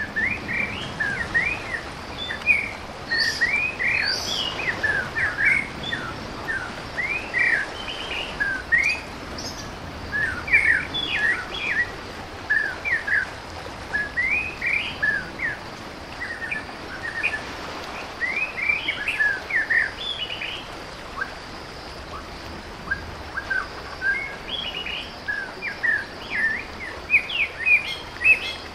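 Birds chirping: many short, quick calls overlapping without a break over a steady background hiss.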